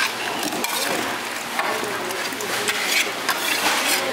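Irregular knocks and clicks of utensils and food being handled at a snack stall, with voices in the background.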